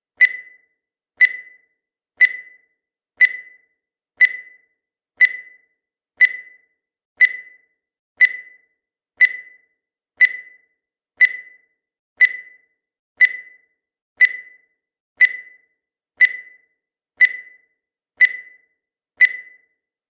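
Countdown timer sound effect: a short, high-pitched tick once a second, each one sharp at the start and dying away quickly, about twenty in all.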